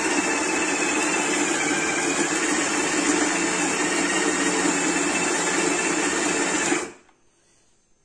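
Electric coffee grinder running steadily, grinding beans straight into a portafilter held under its outlet, then stopping abruptly nearly seven seconds in.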